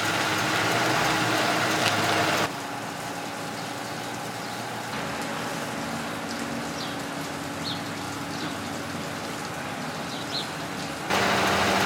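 Steady outdoor background noise with a low engine-like hum. It drops abruptly about two and a half seconds in and rises again near the end, as the shots change. A few faint, short high chirps sound in the quieter middle stretch.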